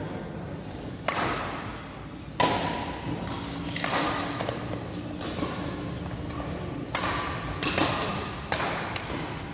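Badminton rackets striking a shuttlecock during a doubles rally: a series of sharp smacks spaced roughly one to a few seconds apart, each ringing briefly in the large hall.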